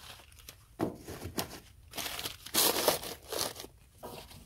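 Crumpled newspaper crinkling and rustling in a series of irregular handfuls as it is pushed into the gaps between logs, loudest a little past the middle.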